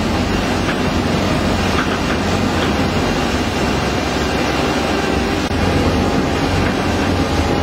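WEIMA WLK15 single-shaft shredder running under load, its knife rotor tearing and grinding pulp material: a steady, dense grinding noise over a low drone.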